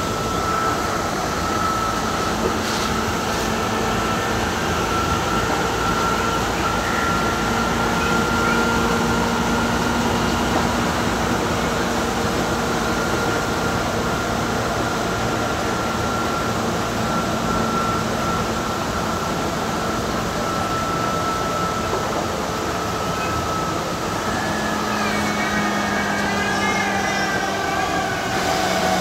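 Hamburg U-Bahn DT3-E metro train heard from the driver's cab while running at speed: a steady whine from the electric traction motors over wheel and track running noise. Near the end the tones waver and start to drop as the train slows for an approaching station.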